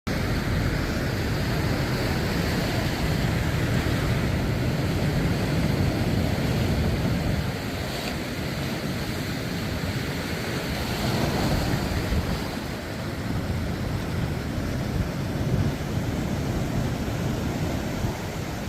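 Sea surf: waves breaking and washing ashore in a continuous rush that swells and eases, with wind buffeting the microphone.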